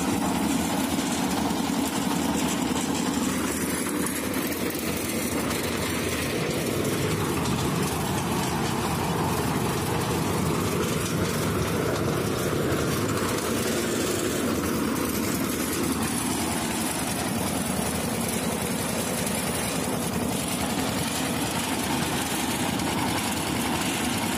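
Concrete mixer's small engine running steadily.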